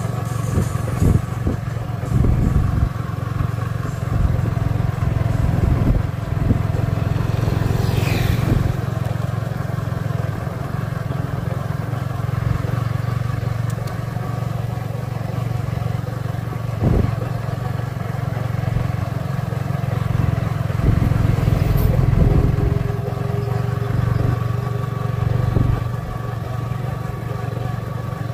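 Motorcycle engine running steadily while riding, a low continuous hum with small rises and falls. A brief falling whistle about eight seconds in.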